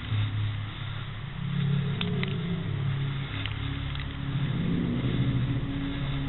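Low, sustained background music tones that shift in pitch every second or two, with a few faint sharp clicks.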